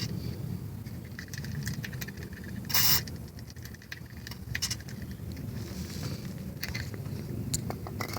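A short hiss from an aerosol can of WD-40 penetrating oil, a single burst of about a third of a second near three seconds in, sprayed onto a rusted shock-absorber nut to loosen it. Light scattered clicks and a low steady rumble run underneath.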